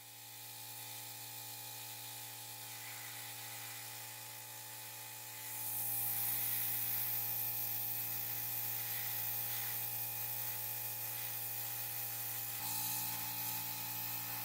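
A small electric motor running steadily with a hum. About five seconds in, a loud hiss like a spray joins it.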